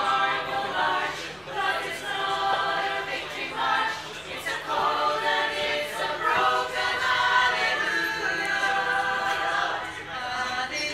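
A cappella choir singing unaccompanied in harmony, in held phrases with short breaks between them.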